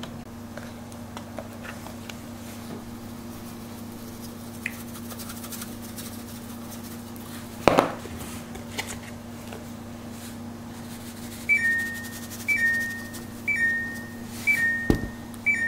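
Kitchen appliance electronic beeper sounding five times near the end, about one beep a second, each a short two-note tone stepping down in pitch. Before it there is one loud knock about halfway through over a steady low hum.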